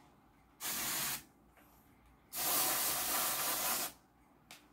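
Aerosol can of L'Oréal Colorista temporary spray hair colour spraying in two bursts: a short one about half a second in and a longer one of about a second and a half from the middle.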